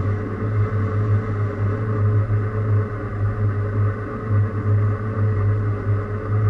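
Metalworking machine tool running steadily: a loud motor hum with a steady higher tone above it and no sudden changes.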